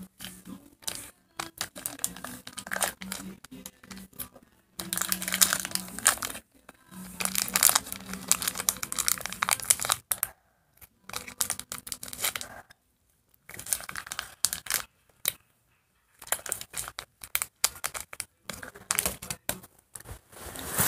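A small crinkly wrapper being handled in the hands, crackling and crinkling irregularly, with a few short pauses.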